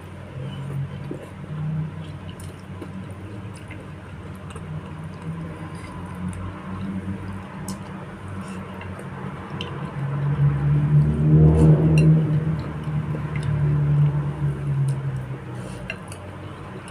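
Close-miked eating: chewing bakso meatballs and spinach in broth, with short clinks of a spoon on the bowl now and then. The chewing grows louder for a few seconds in the second half.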